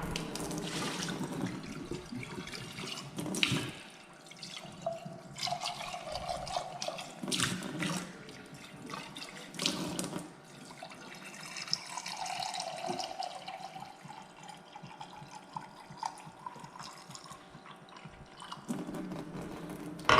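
Water running from a reverse osmosis system's faucet into a container, with a few brief knocks of handling along the way.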